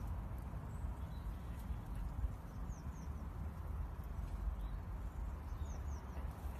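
Steady low wind rumble on the microphone, with faint, short, falling chirps of small birds a few times, twice in quick pairs.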